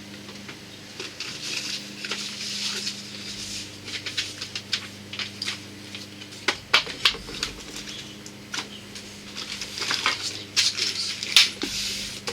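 Rummaging through a box of flat-pack hive parts: rustling packaging with irregular light knocks and clicks as pieces are handled, loudest around the middle and near the end. A steady low hum runs underneath.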